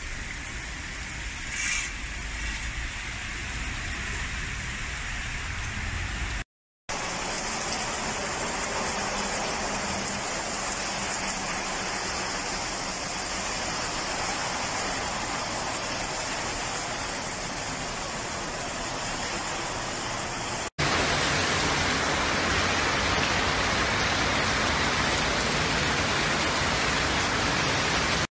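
Steady rushing noise of heavy rain and running floodwater, with no speech. It breaks off briefly about a quarter of the way in, and it is louder in the last quarter.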